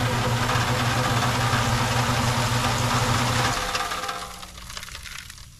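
An engine running steadily at idle; about three and a half seconds in, its steady hum stops and the sound dies away.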